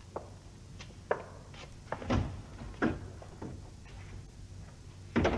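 Footsteps walking off across a hard floor, about one every half second, then a door shutting with a bang about five seconds in.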